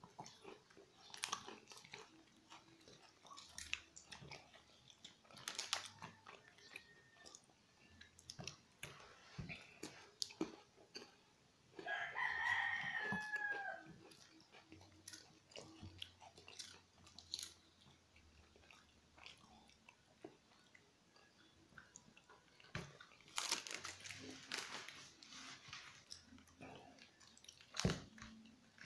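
Shih tzu crunching and chewing a cracker, in irregular crisp crunches. About twelve seconds in, a single drawn-out pitched call lasts about two seconds and falls at its end.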